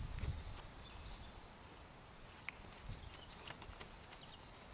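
Quiet open-air ambience with a few faint, high, thin bird whistles, one sliding down in pitch near the start, and a single soft tick about halfway through.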